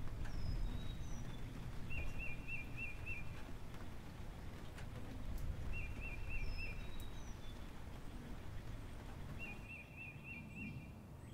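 A bird calling a short quick trill of about five notes, three times at even intervals, with a few higher falling chirps between, over a low steady rumble.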